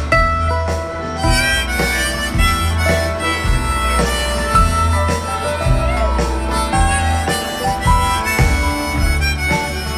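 Live band playing an instrumental passage with a harmonica carrying the melody over acoustic guitar, upright bass and drums keeping a steady beat.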